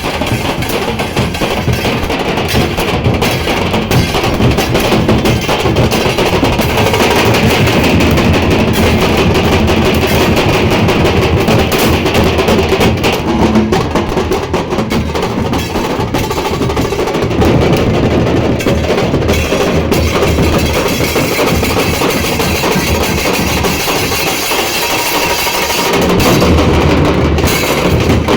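Loud drum-heavy music with a strong bass drum, played through a large DJ sound system.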